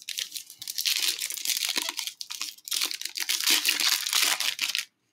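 Foil trading-card pack wrapper being torn open and crinkled by hand: a dense crackling rustle with a brief lull about two and a half seconds in.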